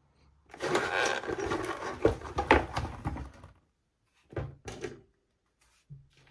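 Handling noise of the air rifle and its gear on a table: about three seconds of rustling with a couple of sharper knocks, then a few short dull thumps near the end as the rifle is gripped and moved.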